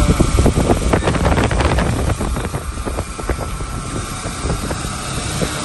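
Road noise from driving at speed: a steady low rumble of engine and tyres, with wind buffeting the microphone. A run of sharp crackles falls between about half a second and three and a half seconds in.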